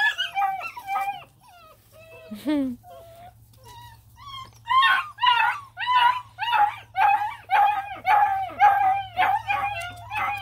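Black and tan coonhound puppy whining and yelping: a few cries near the start, then from about halfway a fast run of short, high, repeated yelps, two to three a second. It is the fussing of puppies that dislike their new identification bands.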